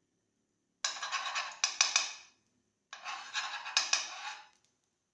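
A spoon scraping and knocking in a kadai as a spoonful of ghee goes into the hot pan, in two bursts of about a second and a half each.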